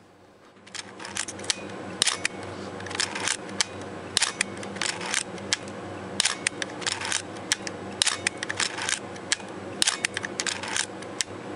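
Olympus OM-1 film SLR being wound and fired over and over: the ratcheting of the film advance lever alternating with sharp clacks of the shutter and mirror, roughly one to two a second. The wind cycle runs through without jamming, the idler gear having been reset.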